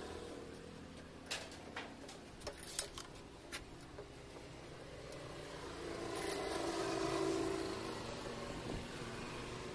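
A few sharp light clicks and taps of a tape measure and chalk on a steel tube, then from about six seconds in a background engine hum that swells and eases off.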